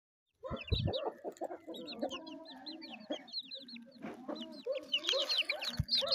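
Aseel chickens: a hen clucking low while chicks peep in quick, high, falling cheeps, the peeping getting busier toward the end.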